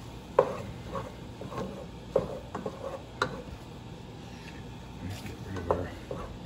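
Wooden spoon stirring and breaking up cooked ground meat and spices in a metal pot, with short, irregular knocks of the spoon against the pot every half second or so.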